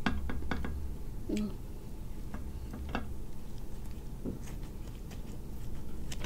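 Kitchen scissors snipping through a grilled, sauce-glazed giant cuttlefish: scattered irregular clicks of the blades, over a low steady hum.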